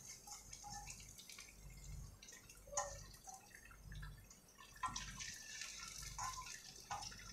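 Batter-coated potato patties deep-frying in hot oil in a wok: a faint, steady sizzle with small crackles. A slotted metal spatula turning them gives two sharp clicks, about three and five seconds in.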